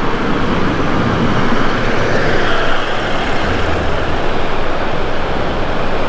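Four-wheel-drive vehicle driving along beach sand: steady engine and tyre noise.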